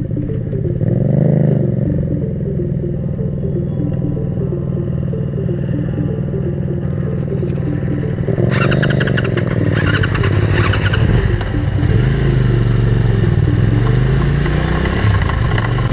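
Motorcycle engine running close to the microphone, revving up about a second in and later rising and falling in pitch through the gears. A rattling clatter joins it for a couple of seconds about halfway through.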